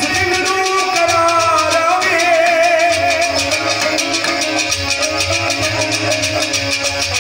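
A man singing a Pothwari sher with sitar accompaniment. The voice holds long, wavering notes and stops about halfway through, and the sitar plays on alone in quick, even strokes.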